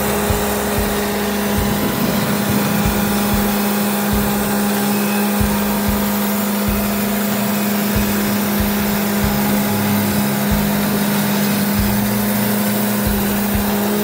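A TimberKing 2000 portable band sawmill running with a steady, unchanging engine hum, its band blade working through the log to make one-inch boards.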